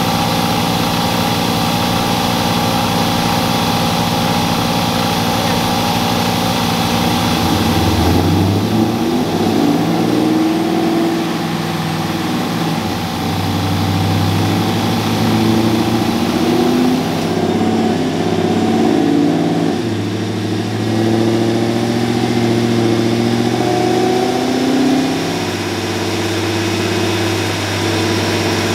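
Boosted Dodge Ram 1500 pickup's engine running on a chassis dyno: it idles steadily, then about eight seconds in the revs climb, and they rise and drop several times as the truck is run up on the dyno rollers.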